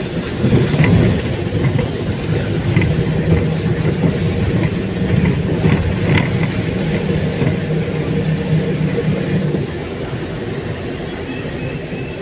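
Town bus engine running while the bus drives, heard from inside the bus along with road rumble. The engine drops to a lower, quieter hum in the last couple of seconds as the bus comes to a stop.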